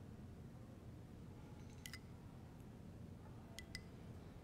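Near silence: room tone, with a few faint clicks of a metal spoon against a small glass bowl as sour cream is scooped out, a pair about halfway through and two more near the end.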